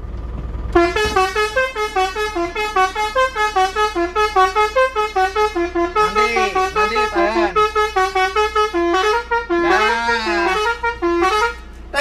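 Telolet basuri horn, a set of roof-mounted musical trumpet horns on a mini truck, playing a fast melody mix of stepping notes, about three or four a second. It starts about a second in, with siren-like rising-and-falling whoops a little past halfway and again near the end.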